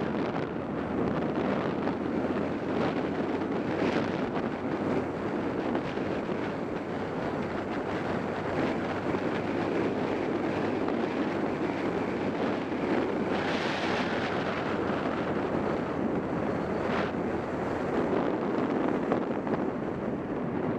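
Steady wind rush on the microphone of a motorcycle riding at road speed, with a low engine hum underneath. A louder rush swells briefly a little past the middle.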